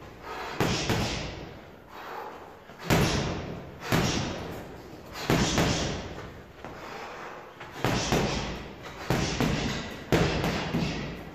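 Boxing gloves striking a hanging heavy bag: about seven single jabs, landing irregularly a second or two apart, each a sharp thud with a short echo of the room.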